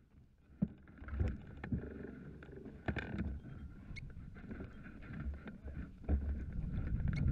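Footsteps on loose rocky gravel and irregular knocks and rattles from the hang glider's frame and harness as the pilot stands up and walks the glider forward, with a low wind rumble on the microphone growing toward the end.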